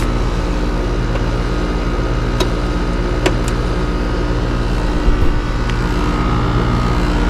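Outdoor unit of a Trane XR heat pump running steadily in cooling mode, with a compressor hum and condenser fan noise. The unit is running without short-cycling. Two faint clicks come a few seconds in.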